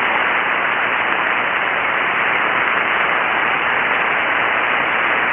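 Steady hiss of band noise from a ham radio receiver tuned to 7.188 MHz single sideband, with no station transmitting: an even, unchanging static rush.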